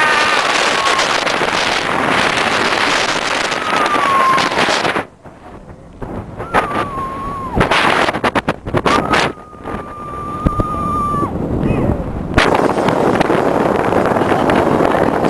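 Wind rushing over the microphone of a riding camera on the SheiKra dive coaster, with a rider's long, held cries. About five seconds in the rush drops away for several seconds, broken by a few knocks. The loud rush comes back about twelve seconds in.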